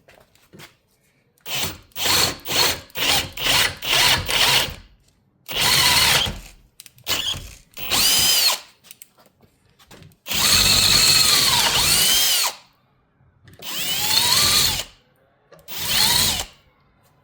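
Power drill boring a hole to be tapped in a metal oil-filter bracket. It starts with a quick series of about six short trigger pulses, then comes several longer runs with the motor pitch rising and falling, the longest about two seconds.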